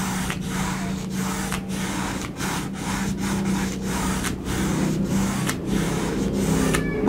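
Nylon flat brush scrubbing acrylic paint back and forth across a canvas, a scratchy rubbing stroke about two to three times a second, over a steady low hum.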